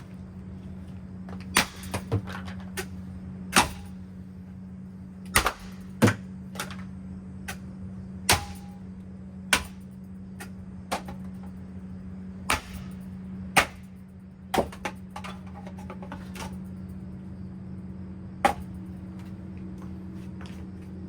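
Hampton Bay Minuet II ceiling fan being wrecked: loud, sharp bangs and clacks at irregular intervals, about fifteen in all, some in quick pairs, over a steady low hum.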